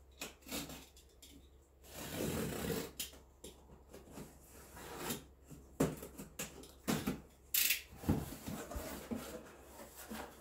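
A cardboard shipping box being cut open with a utility knife: the blade slicing through packing tape, with irregular cardboard rustling, scraping and a few light knocks as the box is handled.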